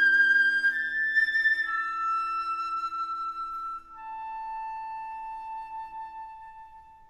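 Slow orchestral music: a solo flute plays long held notes that step down in pitch over soft sustained string chords. It ends on one long low flute note that fades away after the strings drop out.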